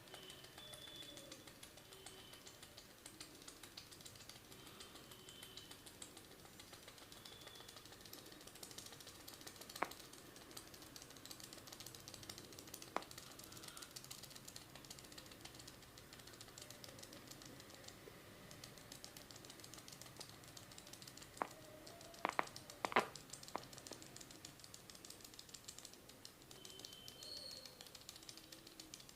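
Barber's hands working over the head and hair in a massage: a faint, dense patter of light clicks and taps, with a few sharper cracks standing out, a cluster of them about three-quarters of the way through.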